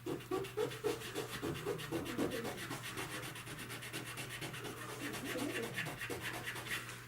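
Hand sanding on a car body panel: continuous rubbing strokes of abrasive against the surface.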